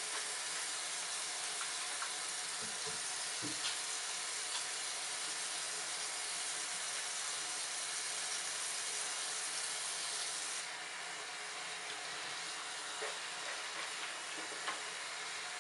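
Bathroom sink faucet running in a steady hiss, with light splashing as hands wash a wet kitten under the stream. The hiss drops a little about ten seconds in.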